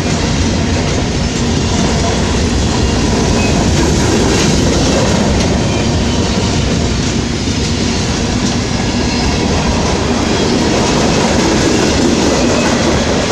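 Norfolk Southern freight train's cars rolling past, a loud, steady rumble and rattle of wheels on the rails.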